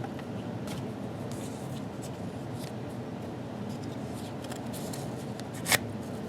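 ESEE Zancudo folding knife being used in a cut test: faint scraping and rustling strokes of the blade on material, with one sharp click near the end.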